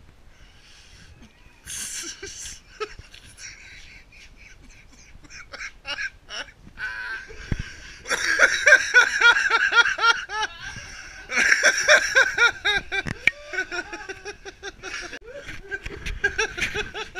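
Loud bouts of people laughing, in quick rising-and-falling ha-ha pulses: one starts about eight seconds in and a second about three seconds later, with a smaller bout near the end.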